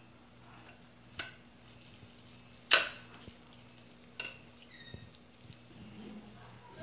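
Metal spoons clinking against a glass mixing bowl of cookie dough while dough is scooped: three sharp clinks about a second and a half apart, the middle one loudest, the last leaving a short ringing.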